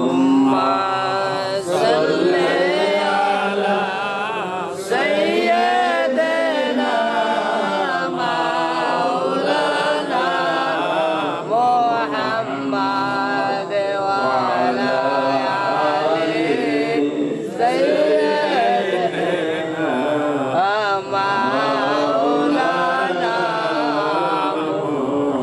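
A man chanting in long, wavering melodic lines with few pauses: devotional recitation sung rather than spoken.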